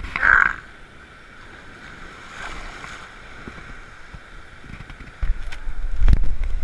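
Handling noise from a stainless-steel sand scoop in shallow surf: a short sharp sound right at the start as a hand works inside the scoop. Later a low rumble grows louder from about five seconds in, with a single knock about six seconds in.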